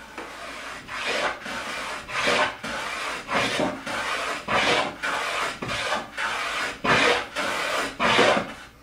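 Small hand plane taking a series of short strokes along the edge of a pine board, roughly one or two rasping cuts a second. It is cutting a chamfer with the grain, taking clean shavings rather than tearing out chunks.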